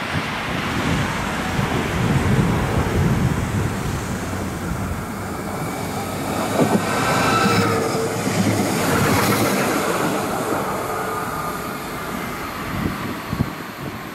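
Articulated low-floor electric tram rolling past close by on a curve, its wheels running over the rails with a steady rumble. A thin whine rises in as it passes and fades away.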